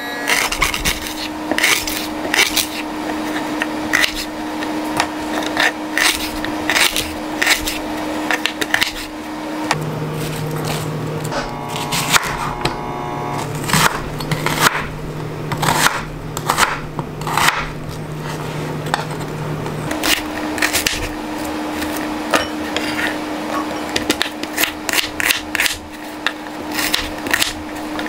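Kitchen knife chopping on a wooden cutting board: a run of irregular sharp knocks as ginger and then an onion are sliced, with the blade scraping the board between cuts.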